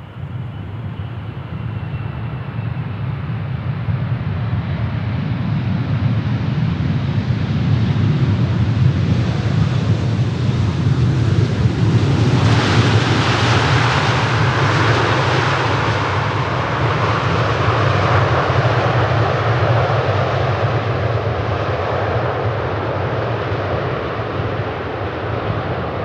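Large jet airliner's engines rumbling and building in loudness over the first several seconds. About twelve seconds in, a sudden harsher rush of jet noise joins, then eases slowly.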